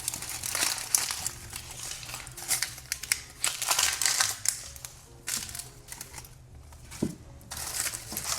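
Dry crinkling and crackling of onions being handled and sorted, coming in irregular bursts through the whole stretch.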